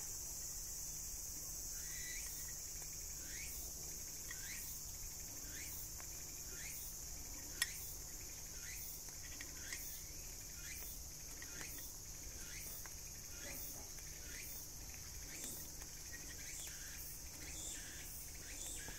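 Steady, faint chorus of insects, with short chirps repeating about once or twice a second. A single light click sounds about seven and a half seconds in.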